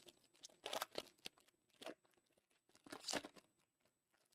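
A foil trading-card pack wrapper being torn open and crinkled, in short bursts about a second in and again around three seconds in.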